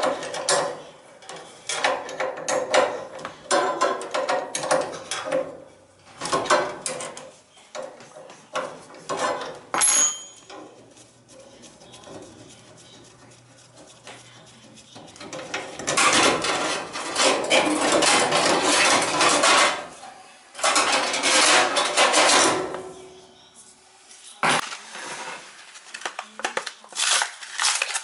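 Metal tools and parts clattering and rattling as they are handled, in bursts of sharp clinks and scrapes. The longest burst runs for about four seconds near the middle, and a single sharp knock comes about three-quarters of the way through.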